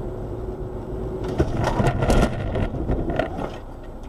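Car cabin road noise with a faint steady hum, then from about a second and a half in a cluster of bangs and crunches over some two seconds as the car collides with another car.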